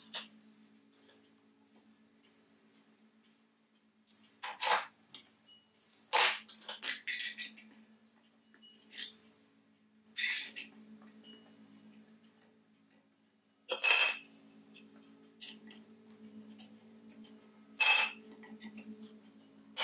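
Spun brass lamp parts and a thin metal ring clinking and scraping against each other on the workbench as they are handled and fitted together, in several separate clatters, the loudest about fourteen seconds in. A low steady hum runs underneath.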